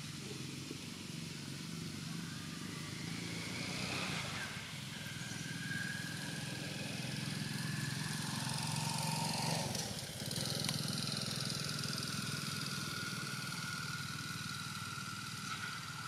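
A motor engine running steadily, swelling a little around the middle and easing off again.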